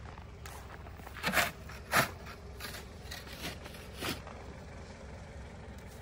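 Snow shovel scraping and scooping through light, powdery snow in a few separate strokes, the two loudest about a second and a half and two seconds in, a softer one about four seconds in.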